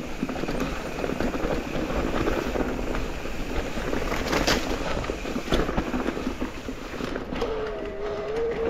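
Mountain e-bike ridden over a trail: tyre and trail noise with the bike rattling over bumps and wind on the microphone. A steady mid-pitched whine comes in near the end.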